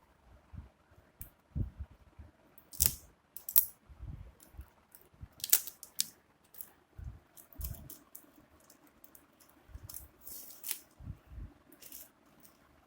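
A smartphone's cardboard retail box and its packaging being handled and opened by hand: irregular clicks, taps and rustles with a few low thumps, the sharpest clicks a few seconds in.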